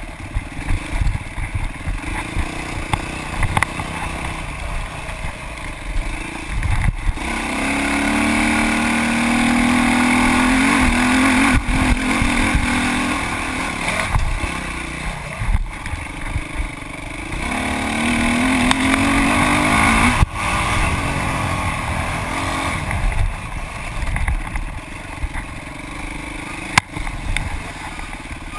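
Dirt bike engine under way on a rough trail, picked up close by a camera mounted on the bike. The engine climbs in two long pulls, one about a third of the way in and one about two-thirds in, with several sharp knocks along the way.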